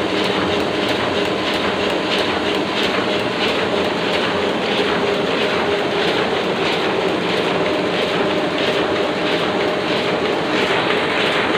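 Oliver printing press running at speed: a steady mechanical clatter with an even, repeating beat of its cycling mechanism over a constant hum.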